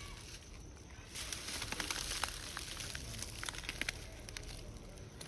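Plastic snack packet crinkling and crackling as a macaque handles it, starting about a second in and dying down near the end.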